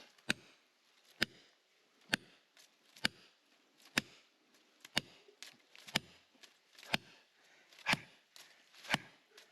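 Hammer blows at a steady pace, about one a second, ten strikes in all, as in driving something in by hammering.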